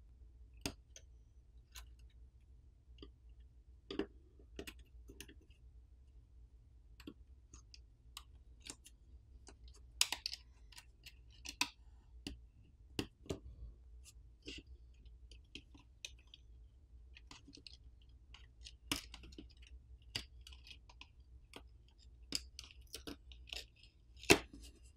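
Small screwdriver and metal parts clicking and tapping against an iPhone's metal frame as tiny screws are removed and a flex cable assembly is handled: irregular faint clicks, a few sharper than the rest.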